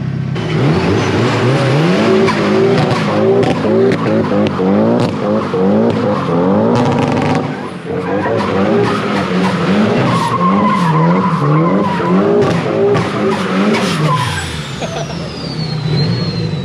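Nissan 240SX S14's turbocharged SR20DET four-cylinder doing a burnout: the engine revs up sharply, then rises and falls over and over at high revs while the rear tyres spin and squeal, and the revs drop away near the end.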